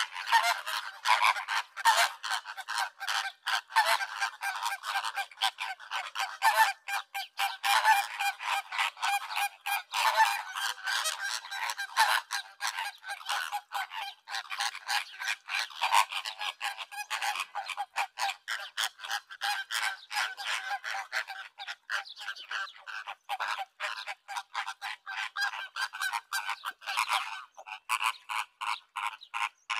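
A large flock of flamingos calling: many short honking calls overlap in a continuous din.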